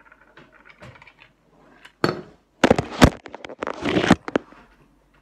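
Cutlery clattering and scraping against a dinner plate: a loud run of sharp clinks and knocks starting about two seconds in, with a scrape near four seconds.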